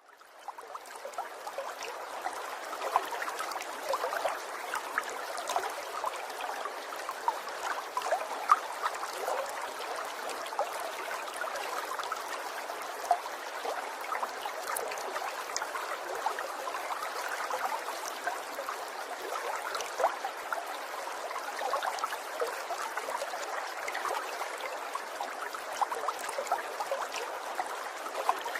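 Water trickling steadily, a continuous wash dotted with many small droplet plinks; it fades in over the first second.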